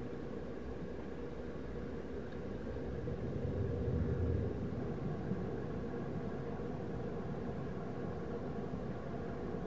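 Steady, muffled underwater rumble and hiss picked up by a submerged camera, swelling briefly in the low end about four seconds in.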